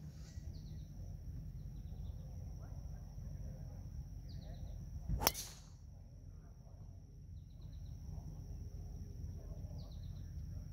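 Golf driver striking a ball off the tee: one sharp crack about five seconds in.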